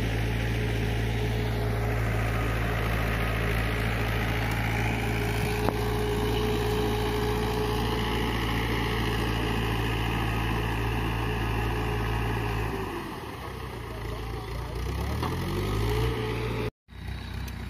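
Mahindra diesel tractor engine running steadily under load. About thirteen seconds in it drops to a lower, quieter note, then revs back up with a rising pitch. The sound cuts out for a moment near the end.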